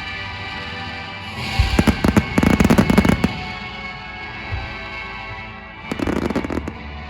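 Fireworks bursting with dense rapid crackling in two spells, a long one starting a little over a second in and a shorter one about six seconds in, over music playing for the show.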